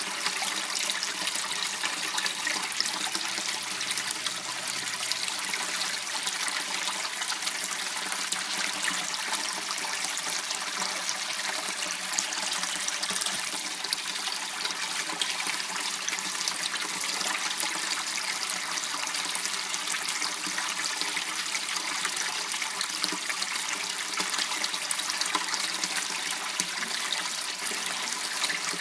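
Water running and trickling steadily in a small channel, an even splashing hiss with no breaks.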